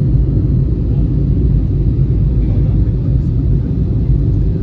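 Steady low cabin rumble of an Airbus A320-214 in flight, the noise of its CFM56 engines and the airflow past the fuselage heard from a window seat.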